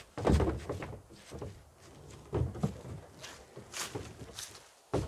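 Irregular rustles and thumps of someone moving about on foot and handling gear, the loudest about a third of a second in and another pair about two and a half seconds in.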